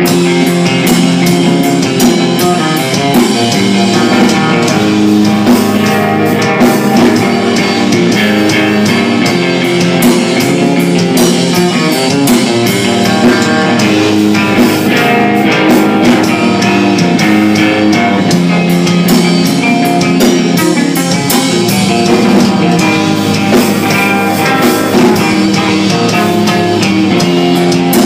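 A black metal / crust punk band playing live and loud: electric guitar and drum kit in a dense, continuous wall of sound.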